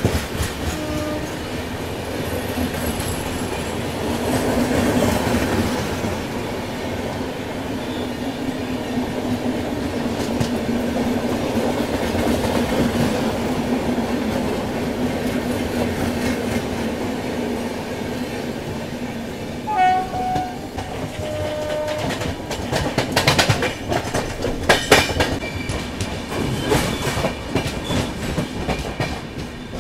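Passenger express train running, heard from an open coach doorway: steady rolling rumble of the wheels on the rails with a constant hum and rushing air. Brief horn notes sound about two-thirds of the way through, followed by a stretch of rapid clattering as the wheels cross rail joints and points.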